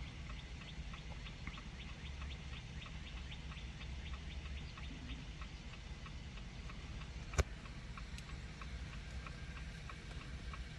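Hazard-light ticking inside a 2019 Jeep Compass: a steady, even tick about three times a second over a low hum, with one sharp click about seven seconds in.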